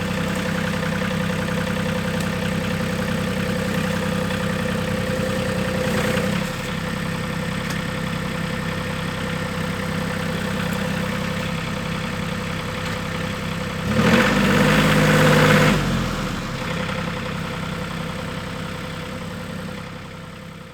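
RK 37 compact tractor's diesel engine running steadily. It grows louder for about two seconds around two-thirds of the way through, then fades away near the end.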